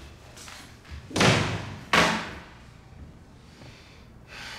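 Two loud slam-like thuds a little under a second apart, about a second in; the second one starts more sharply.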